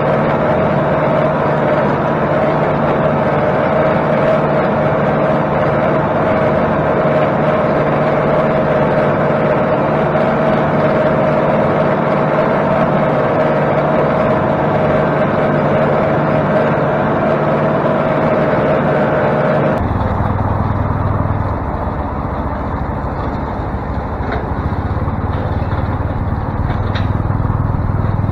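Tractor engine running steadily while driving a bush hog (rotary cutter) through brush, heard close from the operator's seat. About two-thirds of the way through, the sound changes suddenly to the lower, more distant rumble of the tractor mowing further off.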